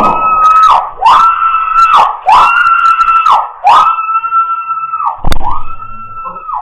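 Electronic alarm siren sounding a repeated whooping tone: each cycle swoops up, holds, then drops, about once a second. A sharp knock comes about five seconds in.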